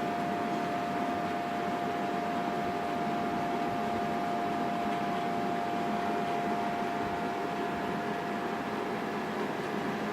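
Steady hum and hiss with one constant mid-pitched tone, unchanging throughout, like a running fan or appliance.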